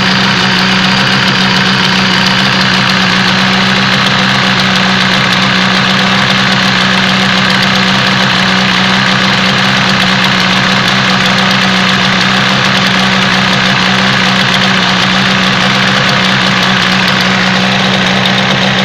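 Yamaha TZR250's two-stroke parallel-twin engine idling steadily, with no revving.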